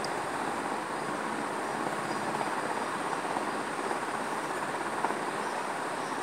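Steady rushing background noise at an even level, with no voice, tones or distinct knocks in it.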